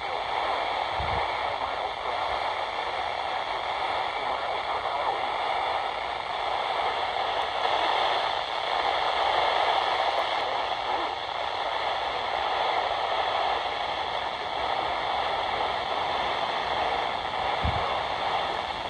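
Radio static: a steady hiss from a weather radio receiver carrying dead air, with no broadcast voice or tone.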